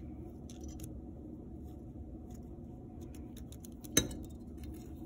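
Faint rustling and scratching of yarn being pulled through the holes of a painted clay loom frame, with one sharp knock about four seconds in as the frame is lifted and handled over the wooden table.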